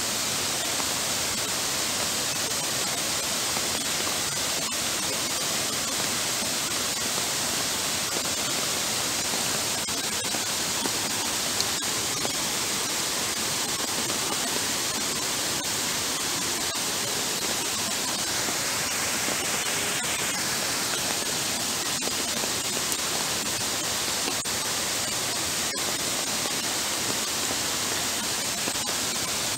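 Heavy rain falling onto a flooded paved path while floodwater runs across it: an even, steady hiss with no let-up.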